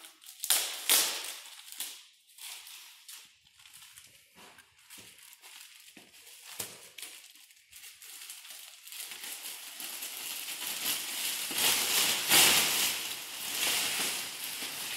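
Thin plastic shower curtain liner crinkling as it is unwrapped and unfolded: a few sharp crackles at first, then scattered small rustles, then a long stretch of dense crinkling as the sheet is shaken out and spread, loudest about twelve seconds in.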